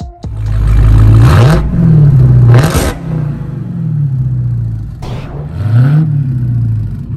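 Dodge Charger Hellcat's supercharged 6.2-litre HEMI V8 running loud through a 3-inch cat-back exhaust with Race Demon mufflers and the active valves removed. It is revved in about three quick blips, rising sharply in pitch and falling back toward idle between them.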